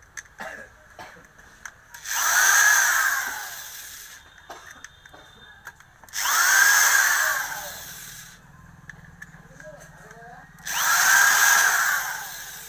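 Electric wood planer run three times in short bursts, each time spinning up quickly and then winding down.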